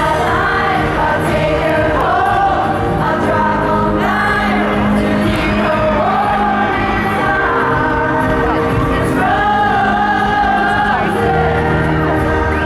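A pop band playing live, with male voices singing long held notes over the band.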